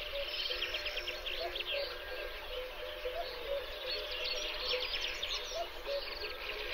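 Many birds singing at once: a dense chorus of fast, overlapping trills and chirps. Beneath it, lower notes repeat roughly once a second.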